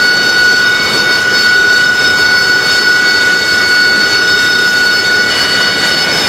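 AV-8B Harrier II's Rolls-Royce Pegasus turbofan running steadily on the ground, a loud rush with a high, steady turbine whine on top.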